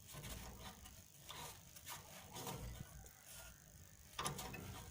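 Faint handling noises: scattered light clicks and rustles, with a louder knock about four seconds in.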